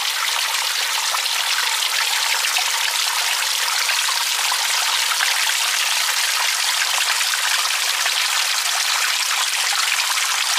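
Water trickling and dripping in many thin streams off a mossy overhang and splashing onto rocks below: a steady, dense patter.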